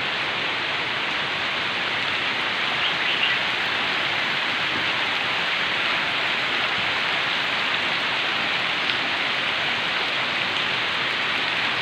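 Heavy rain pouring down steadily in still air: an even, unbroken hiss with no gusts of wind.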